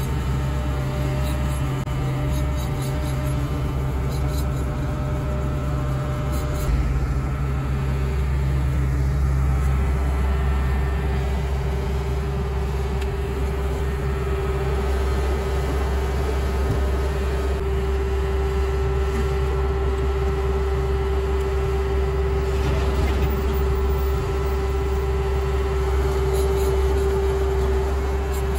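Sumitomo HA45W asphalt finisher running steadily under paving, a low engine hum with a steady whine that grows stronger about a third of the way in.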